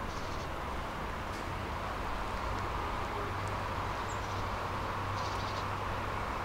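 Tram running on its line: a steady low hum under an even band of rolling noise, with a few faint short high squeaks or chirps now and then.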